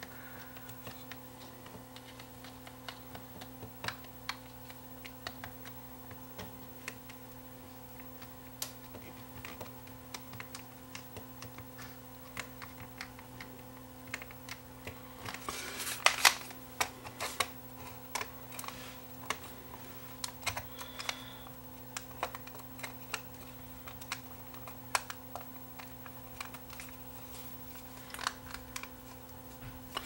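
Rubber keypad buttons of a Samsung TV remote being pressed one after another as the freshly cleaned contacts are tested: soft, irregular clicks, with a louder clatter of handling about halfway through. A steady low hum runs underneath.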